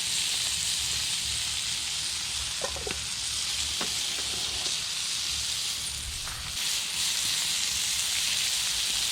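Steak searing in butter in a cast iron skillet over a campfire: a steady, even sizzle.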